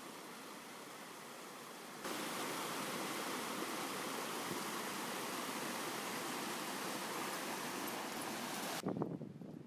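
Rushing water from a small stream cascade, a steady hiss that steps up louder about two seconds in. It cuts off abruptly near the end, followed by a brief low rumble.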